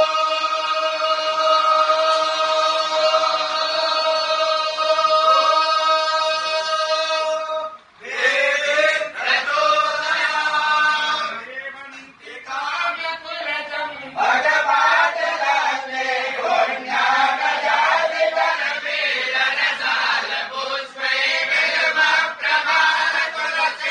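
Group of male priests chanting a Sanskrit hymn to the goddess Chandi together. A long steady held note runs until about eight seconds in, breaks off briefly, and the chant goes on syllable by syllable.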